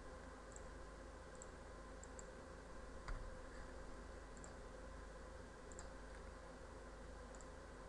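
Faint computer mouse clicks, some in quick pairs, with one louder click about three seconds in, over a faint steady hum.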